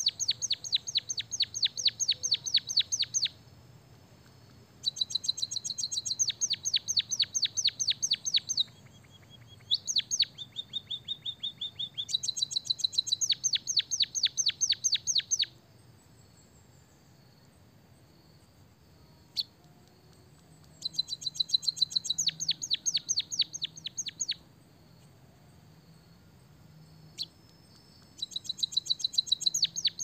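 White-headed munia singing canary-style song (a learned canary fill-in): bouts of rapid, evenly repeated sharp chirps lasting about three seconds each, with short pauses between. About six bouts occur, one of them a lower, steadier trill, and a longer gap falls past the middle.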